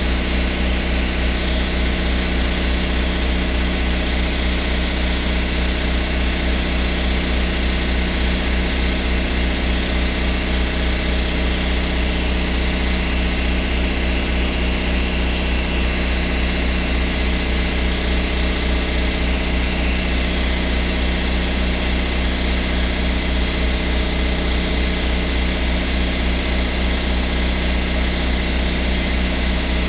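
Air compressor running steadily with an even low chugging pulse, under the continuous hiss of a paint spray gun laying on clear coat.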